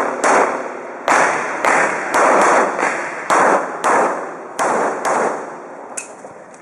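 A string of about ten semi-automatic pistol shots, spaced roughly half a second to a second apart, each with a short echo trailing off, and a fainter shot near the end.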